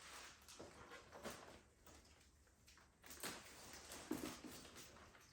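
Near silence with a few faint, soft handling noises, light knocks and rustles.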